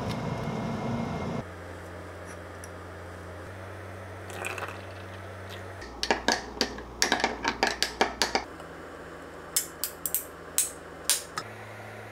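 Metal spoon stirring a dark liquid in a small glass measuring jug, clinking quickly against the glass for a couple of seconds, then a few separate clinks. Before that, a steady rushing noise stops about a second and a half in, leaving a low hum.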